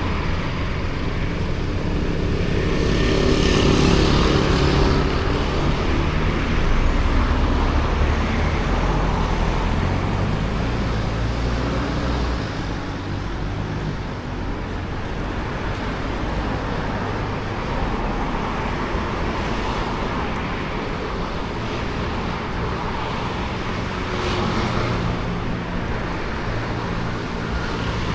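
Road traffic: motor vehicles passing close by, engine hum over tyre noise, loudest about three to eight seconds in.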